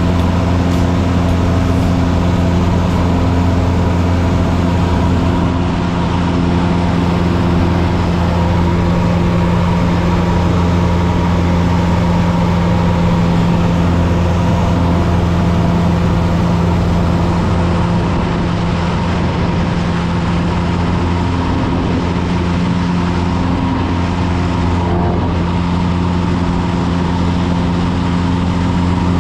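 Single-engine piston airplane's engine and propeller droning steadily at cruise power, heard from inside the cabin.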